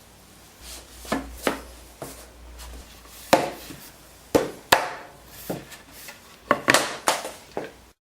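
Pieces of oak tongue-and-groove flooring knocked and tapped together while being fitted for a glue-up: about a dozen sharp wooden clacks at irregular intervals. The sound cuts off abruptly just before the end.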